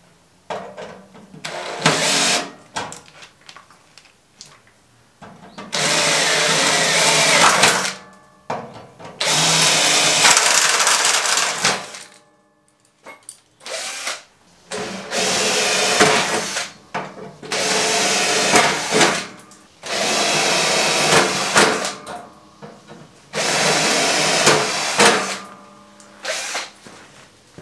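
Cordless drill running in a series of bursts, each about two to three seconds long with short pauses between, its bit working into the aluminium checker-plate cover.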